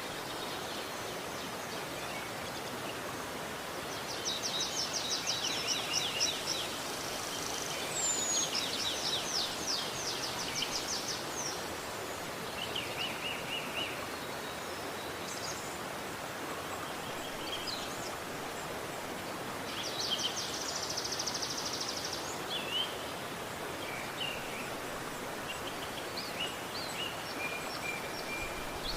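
Steady rush of flowing river water, with songbirds singing over it: several rapid, high trilled phrases and scattered short chirps between.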